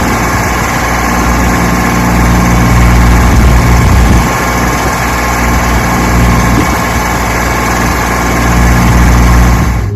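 An engine running steadily at an even speed, which cuts off abruptly at the very end.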